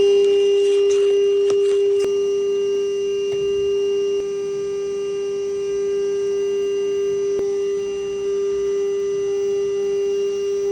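A steady, loud hum held on one pitch with faint overtones, unchanging throughout.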